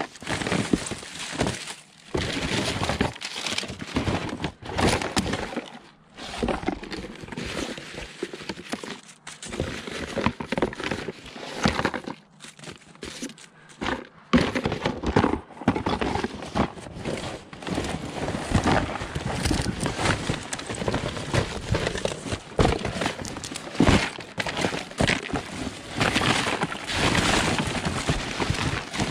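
Junk being rummaged through and shifted by hand in a dumpster, with continual irregular clattering, knocking and rattling of scrap and debris.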